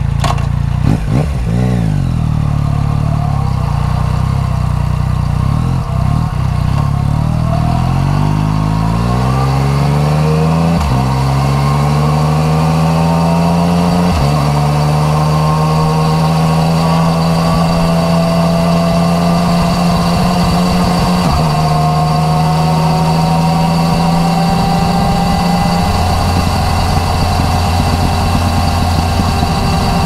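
Yamaha MT-09 Tracer's three-cylinder engine through an Akrapovič titanium exhaust, heard from the rider's seat. The revs waver briefly while the bike is stopped, then climb as it pulls away, with the pitch dropping at each of three upshifts, and the engine settles to a steady cruise.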